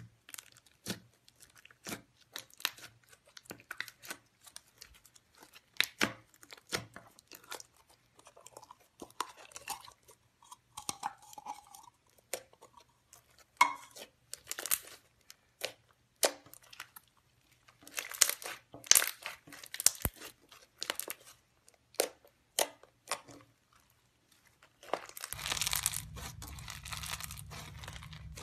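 Slime being kneaded and squeezed by hand, giving an irregular series of sticky clicks and pops. Near the end a bead-textured slime is pressed, and the sound turns into a denser, continuous crunching crackle.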